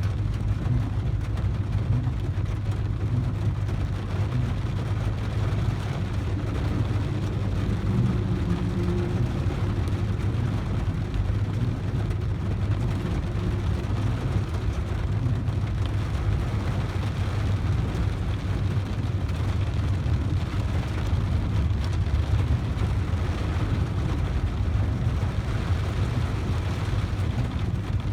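A steady low engine rumble with an even hiss over it, unchanging throughout.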